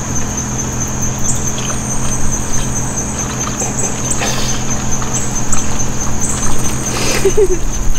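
Insects chirping outdoors: a steady high, thin trill with short rising chirps repeating every second or so, over a constant low hum and a steady noise.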